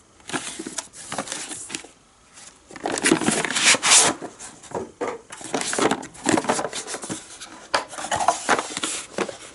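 K-Tool half-inch-drive swivel impact sockets being handled: irregular metal clicks, rattles and scraping, with a short pause about two seconds in.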